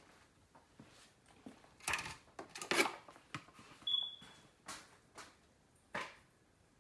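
Kitchen handling noises while preparing food: a series of rustles and knocks, loudest about two to three seconds in, with another knock about six seconds in.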